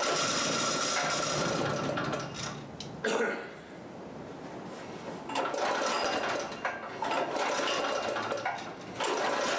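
Small engine of a Harbor Freight 3000-watt portable generator firing and running for about three seconds, going quiet, then running again for a few seconds before stopping. It is running only on leftover gasoline in the carburetor, because air is still in the new propane line.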